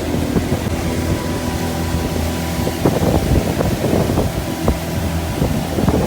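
Pontoon boat's motor running steadily under way, with wind buffeting the microphone in irregular thumps.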